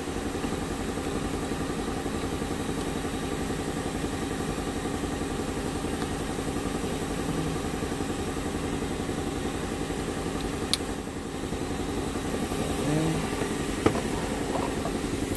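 An engine idling steadily, with a fast even pulse. A sharp click comes about eleven seconds in and another near the end.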